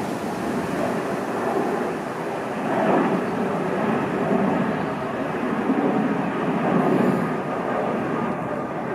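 Jet engines of a Boeing 787 airliner climbing out after takeoff: a steady rushing noise that swells a little about three seconds in and again near seven seconds.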